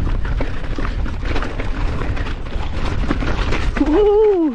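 Mountain bike riding over rough, muddy trail: wind buffeting the microphone and a steady rumble of tyres, with frame and chain rattling over bumps. Near the end a rider lets out a drawn-out shout that rises and falls in pitch.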